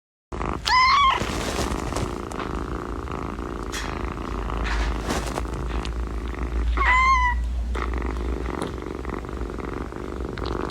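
Domestic cat purring steadily, with two short meows, one about a second in and one about seven seconds in.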